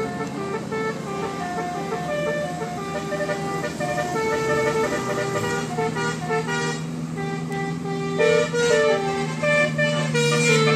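Bus telolet horn: a set of multi-tone horns playing a tune in short stepped notes over a steady low hum, louder from about eight seconds in.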